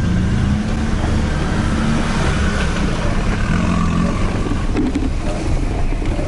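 Toyota Hilux engine and drivetrain running steadily while the truck crawls over off-road ground.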